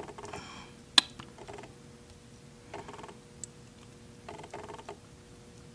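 Soldering iron tip working a wire into a solder pad on a drone flight controller: about four short bursts of fast, fine crackling, with one sharp click about a second in.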